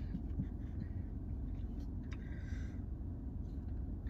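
Low, steady hum of a car interior, with faint mouth clicks from chewing and a brief soft rustle about two seconds in.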